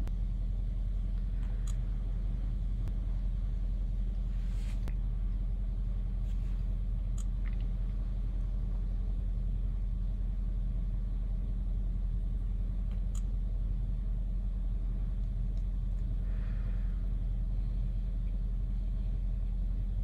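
Mercedes-Benz GLE (W166) engine idling steadily, a constant low hum, with a few faint clicks.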